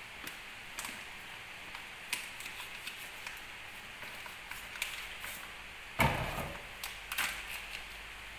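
Thin clear plastic bag being handled and crinkled, with scattered crackles and clicks over a steady background hiss, and a louder burst of handling noise about six seconds in.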